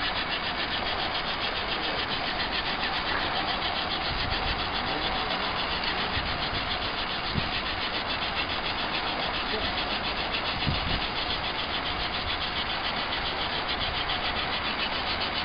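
Steady rush and hiss of steam from a home-built steam tractor's wood-fired boiler and steam plumbing as it warms up, with a fine rapid pulsing under the hiss.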